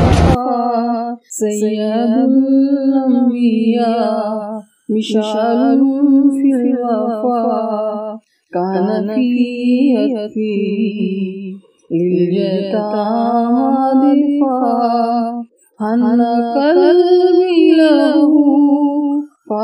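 A single voice singing an unaccompanied devotional song (nasheed), clean and without background noise: about six drawn-out, ornamented phrases of one to four seconds, each separated by a short break.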